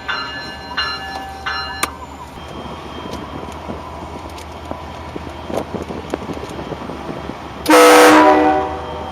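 A bell rings in steady strokes about two-thirds of a second apart, stopping about two seconds in. Near the end comes a loud, short blast of a multi-note chime air horn of the kind fitted to locomotives.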